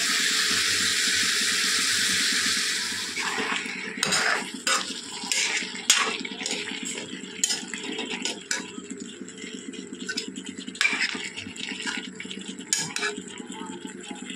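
Food sizzling in an aluminium kadai, a steady hiss that fades out about three seconds in, followed by a metal ladle stirring in the pan with irregular clinks, scrapes and knocks against the metal.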